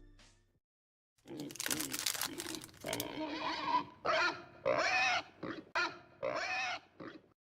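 A crackling rustle, then a run of about seven short pig-like grunts and squeals that bend in pitch.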